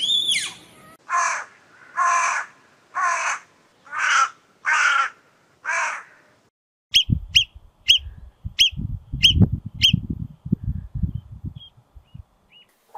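A bird gives six harsh caws, about one a second. After a short pause comes a run of short high chirps, about two a second, over low irregular thumping.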